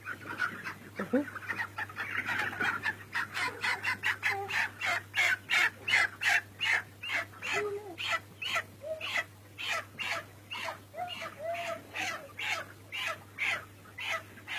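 Flock of chickens calling in a poultry house: a dense chorus of overlapping calls, then from about four seconds in a run of short, evenly repeated calls, about three a second.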